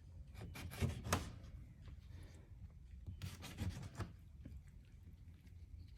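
Benchmade pocket knife blade cutting into an orange: two clusters of short scraping strokes, about a second in and again around three to four seconds in.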